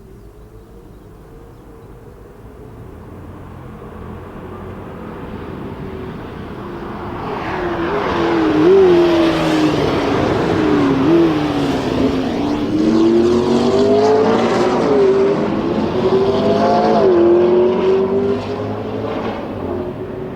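McLaren P1's twin-turbo V8 on the track, growing from faint to loud over the first eight seconds. Its engine note dips and climbs several times as it revs through the gears, then eases off slightly near the end.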